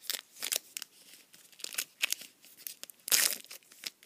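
Trading cards and their pack wrapper being handled: a run of short crinkling, rustling sounds, the longest and loudest a little after three seconds in.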